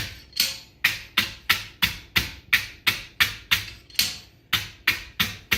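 Hand wire brush scrubbing a freshly forged steel horseshoe in quick, even strokes, about three a second, brushing off the forge scale.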